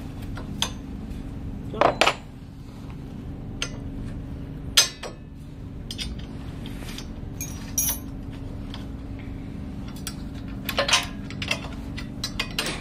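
Steel frame parts and bolts of a chalk-making machine clinking and knocking as they are fitted together by hand, in scattered sharp clicks with the loudest knock about five seconds in, over a steady low hum.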